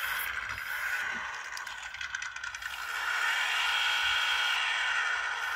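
Simulated engine sound from the Orlandoo D4L sound module, played through the micro RC truck's tiny speaker: a thin, rattling engine note with a fast pulse. It grows louder and steadier about three seconds in.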